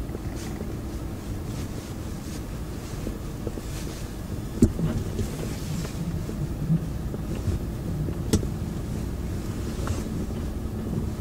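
Cabin noise of a 2002 BMW 520i E39 driving slowly on snow: the inline-six engine running low and steady under tyre and road rumble. Two sharp knocks come through the car, one about four and a half seconds in and one about eight seconds in.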